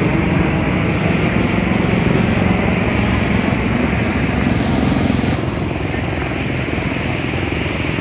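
Steady roar of the rushing Mandakini river in its gorge, a loud, even rush of water, a little quieter after about five and a half seconds.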